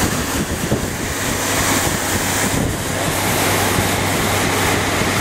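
Steady rushing hiss of a ladder truck's aerial nozzle throwing a full water stream, mixed with wind buffeting the microphone, over a steady low hum.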